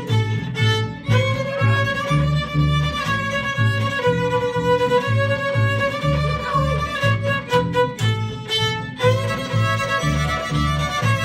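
A small string band plays a lively folk fiddle tune. Fiddles carry the melody over an upright bass plucking a steady line that alternates between two low notes.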